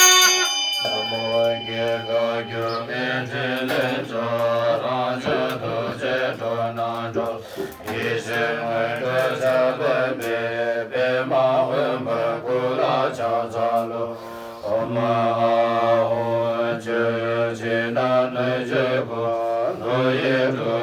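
A group of men, monks among them, chanting a Tibetan Buddhist liturgy in unison in low voices, a steady rhythmic recitation with short breaks for breath. The ringing of the preceding instrumental music fades out as the chanting comes in about a second in.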